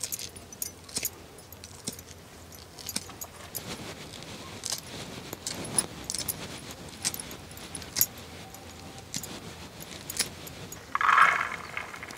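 Fresh sweet corn kernels being stripped off the cob by hand, with scattered small clicks and taps as kernels drop into a clay bowl. Near the end, a brief louder rush as a handful of loose kernels is poured into a pot.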